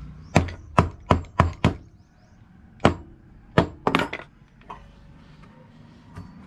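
Small hammer striking small pieces of scrap wood: five quick blows in the first two seconds, a pause, then three or four more spaced blows, the last one lighter.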